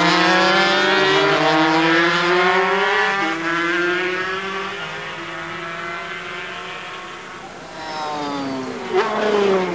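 Two-stroke 250 cc Grand Prix racing motorcycles running at high revs, several engine notes rising and falling against one another as the bikes pass. Near the end one engine note drops in pitch as a bike goes by, with a sharp click about nine seconds in.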